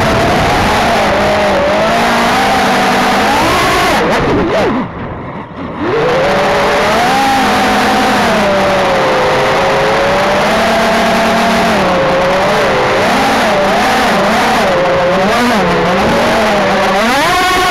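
Motor and propeller whine of a radio-controlled aircraft, heard through its onboard camera, rising and falling in pitch with the throttle. It drops away briefly about four seconds in, climbs back, wavers up and down, and rises sharply near the end.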